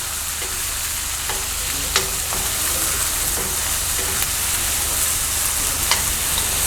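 Ginger-garlic paste frying with whole spices and chillies in hot oil, a steady sizzle as it is stirred in the pan, with a couple of sharp clicks about two seconds in and near the end.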